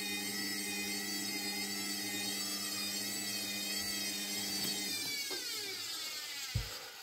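Hotpoint front-loading washing machine's motor whining as the drum turns through heavy suds, then winding down in pitch from about five seconds in as the drum slows to a stop, with a low thump near the end: a sudslock, the spin cut short by too much suds.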